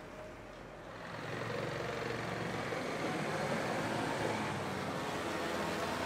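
An engine running close by, getting louder about a second in and then holding steady.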